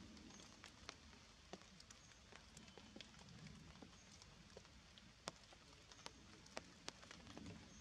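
Faint, irregular drips of rainwater falling from wet forest leaves after rain, scattered sharp ticks over a quiet background.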